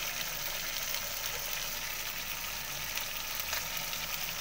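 Thick tomato-onion gravy frying in oil in a kadai, giving a steady, gentle sizzling hiss.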